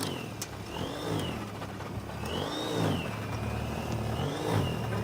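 Motor vehicle engine revving over and over, its pitch rising and falling in arcs over a steady low hum, with a few sharp clicks.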